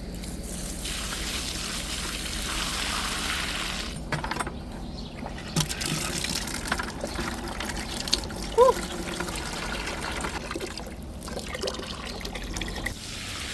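Water running and splashing as fig trees are watered, with a few short breaks in the flow.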